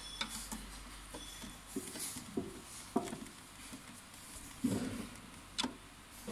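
Faint, scattered clicks and taps of a wire being handled and fitted into a switch terminal, about half a dozen, with a brief low rustle near the end.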